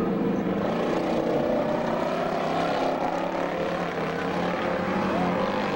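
Dirt-track race car engines running at speed, a dense, unbroken engine drone with brief rises and falls in pitch.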